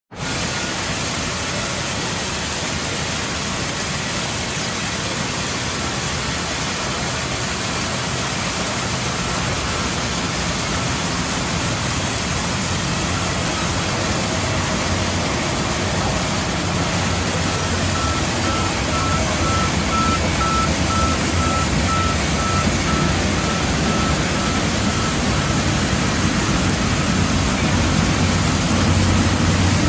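Vertical band sawmill running and sawing through a large log: a steady mechanical noise that grows slightly louder over time, with a faint high whine for a while past the middle.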